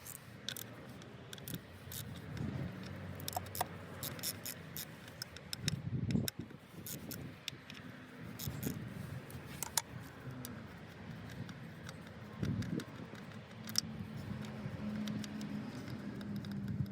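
A wrench on a 10 mm socket undoing the four bolts that hold a car's engine computer (ECM), with scattered sharp clicks and metal clinks and scrapes throughout.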